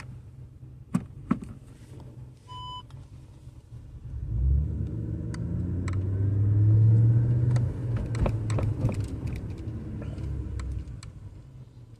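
2014 Audi RS5 rolling slowly over a bump: a low rumble builds from about four seconds in and fades near the end, with sharp knocks and clicks from the front-left suspension, the sign of a worn sway bar end-link bushing knocking under load. Two clicks about a second in and a short beep about three seconds in come before it.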